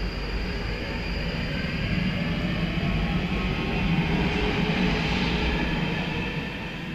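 London Underground Northern line train running on the track, a steady rumble with a faint whine that builds toward the middle and fades near the end.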